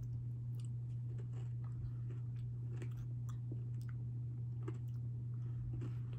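A person chewing a bite of a Reese's peanut butter cup with potato chips in it, with many small irregular crunches from the chips. A steady low hum runs underneath.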